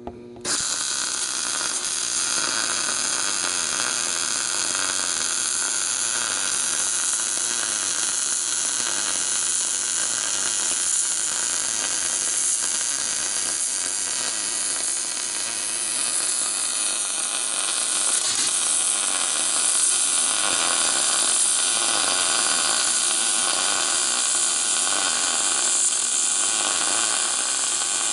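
MIG welding arc laying a bead: a steady, unbroken hissing sizzle that strikes up suddenly about half a second in.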